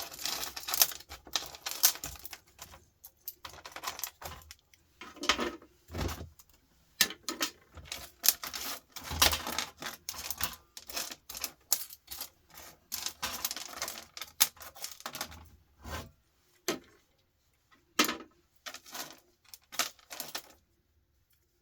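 Small pieces of scrap metal (shred) being handled and tossed into a pile, a fast, irregular run of clinks and rattles that thins out and stops near the end.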